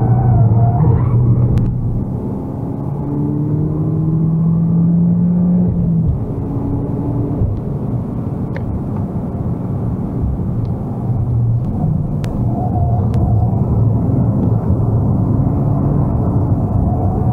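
Peugeot 208 GTi 30th's turbocharged four-cylinder engine, fitted with a Pipercross dry air filter, heard from inside the cabin under hard track driving. The engine note climbs under acceleration, drops away about six seconds in, then pulls up again, with a few light clicks over it.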